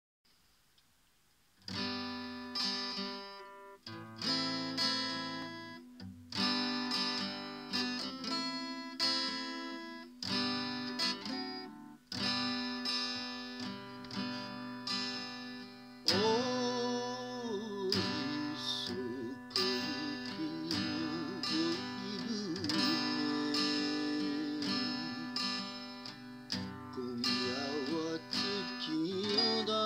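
Steel-string acoustic guitar, capoed, strummed in chords that are left to ring and change every second or two, starting after a short pause. About halfway in, a man's voice begins singing over the guitar.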